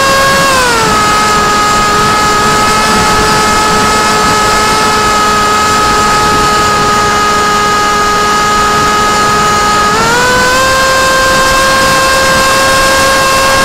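Brushless electric motor (Sunnysky 2204 2300kv) spinning a 6045 propeller on a small RC flying wing, a steady whine with rushing wind noise over the onboard camera. The pitch drops about half a second in as the motor slows, holds, then rises back up about ten seconds in.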